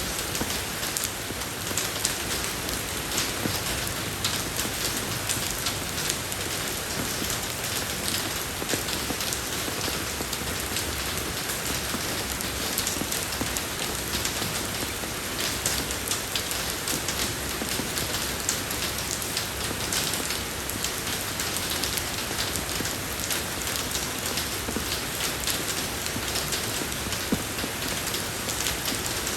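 Steady rain falling on a road surface, an even hiss dense with the fine patter of individual drops.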